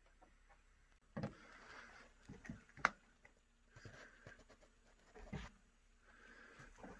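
Quiet scattered knocks and footfalls on a wooden floor in a small room, with one sharp tap about three seconds in.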